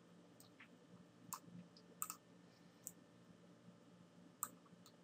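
Faint, irregularly spaced clicks of a computer mouse, about six in all, over near-silent room tone.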